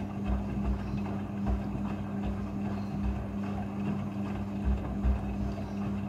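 Front-loading washing machine tumbling a wet blanket during the rinse: a steady motor hum with water sloshing and irregular low thuds as the heavy wet load drops in the drum.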